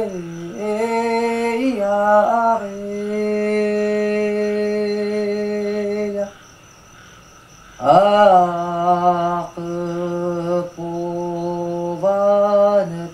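A single voice singing slowly in long held notes, each sliding into pitch at its start, with a break of about a second and a half in the middle.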